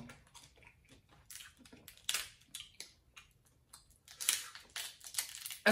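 Snow crab shell crackling and crunching as it is pulled apart by hand, in several short bouts of crackle.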